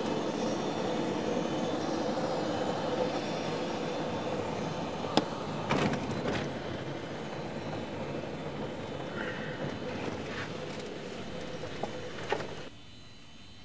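Steady aircraft engine noise on an airport apron, a constant hum with a held mid-pitch tone and a few sharp clicks about five to six seconds in. It cuts off abruptly about a second before the end, leaving a faint low hum.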